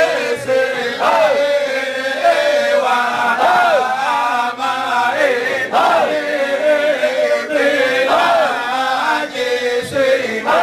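A group of men chanting Shadhili Sufi dhikr in unison, a repeated rising-and-falling phrase coming round about every two and a half seconds.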